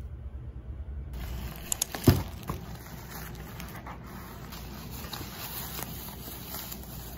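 Plastic wrap crinkling and crackling as a parcel wrapped in black plastic is handled and unwrapped, starting about a second in after a low hum, with a few louder crackles about two seconds in.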